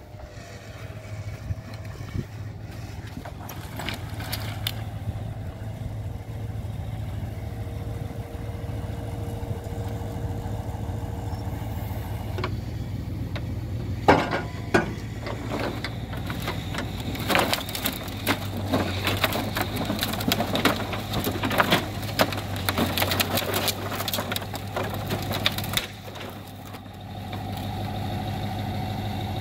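Timber truck's engine running steadily while its hydraulic crane grab works the load of thin slab wood. From about halfway through, the slabs knock and crack against each other in a dense clatter as the grab pulls a bundle out, then the clatter stops near the end.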